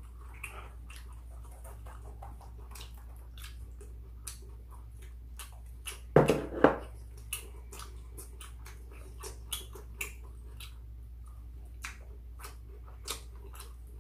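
Eating at a table: chopsticks clicking against bowls and a takeout container, with chewing. About six seconds in there is one short, louder voiced sound, and a low steady hum runs underneath.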